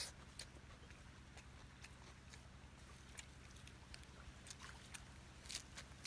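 Close-up mouth sounds of eating fried fish: soft, scattered crunches and wet clicks of chewing, with a louder crunchy bite about five and a half seconds in.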